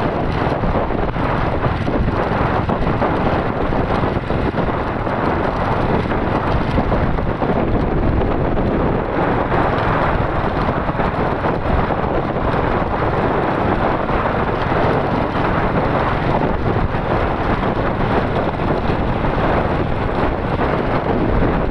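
Heavy wind noise on the microphone of a moving vehicle, a dense, steady rush with the vehicle's running and road noise beneath it.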